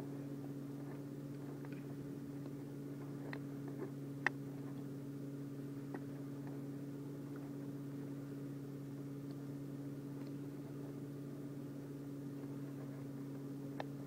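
A steady low hum, with a few faint ticks and rustles of 550 paracord being pulled and tightened by hand; the sharpest click comes about four seconds in.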